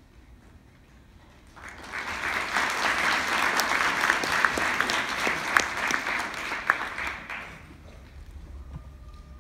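Audience applauding: a burst of clapping that starts sharply about a second and a half in, holds for about six seconds and dies away near the end.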